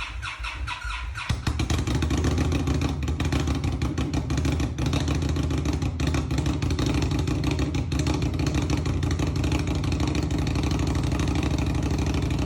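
Indian Scout Bobber's V-twin engine on a cold start: the starter cranks it briefly, it catches about a second in and then keeps running steadily, a little unevenly at first.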